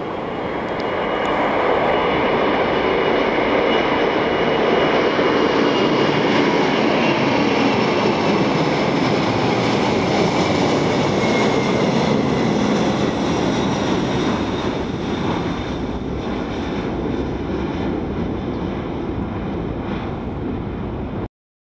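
A Boeing 747-400 freighter's four jet engines at takeoff power as it lifts off and climbs away: a loud, steady roar with a slowly falling whine. It swells over the first two seconds, eases after about thirteen, and cuts off abruptly near the end.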